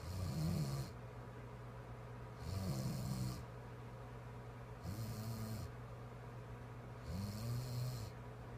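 A sleeping woman snoring: four snores, one about every two and a half seconds, each a pitched rasp lasting just under a second.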